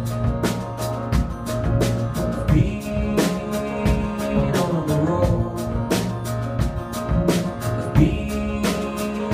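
Live band playing an instrumental passage: a drum kit keeps a steady beat under double bass, acoustic guitar and keyboard.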